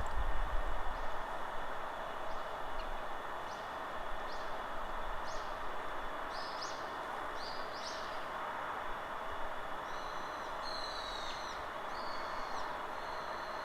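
Wild birds calling over a steady rush of forest wind: a run of short rising chirps about once a second that grow louder, then arched two-tone calls near the end. A low wind rumble on the microphone in the first second.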